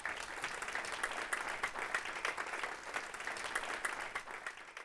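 Audience applauding: many hands clapping steadily, fading out at the very end.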